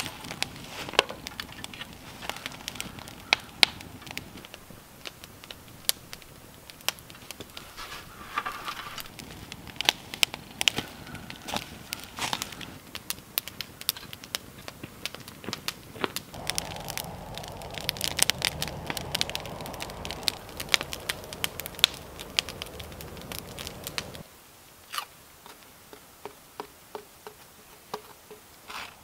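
Wood campfire crackling and popping in quick irregular snaps, with a steady rushing hiss joining for several seconds in the second half. Near the end the crackle drops away to a few scattered clicks.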